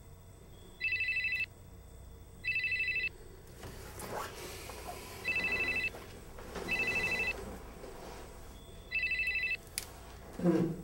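Telephone ringing with a short electronic trilling ring: five rings of about half a second each, coming in pairs about a second and a half apart with longer gaps between the pairs.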